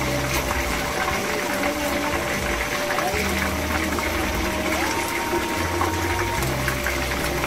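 Chicken drumsticks sizzling in hot frying oil in a pan, a steady crackling hiss with small pops. Background music with held notes plays along with it.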